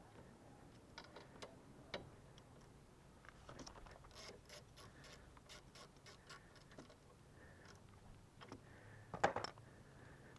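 Faint, irregular clicks and ticks of hand tools and small parts being handled during reassembly of a Suzuki Burgman 400 scooter's kickstand switch, with a louder cluster of knocks about nine seconds in.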